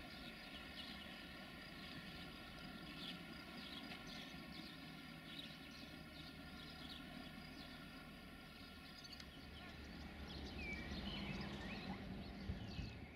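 Faint railway-station ambience: a low rumble with a steady high-pitched hum over it, and small birds chirping, more busily in the last few seconds.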